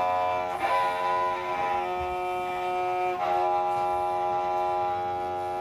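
Fiddle bowed in long, sustained notes that change pitch about half a second in and again about three seconds in.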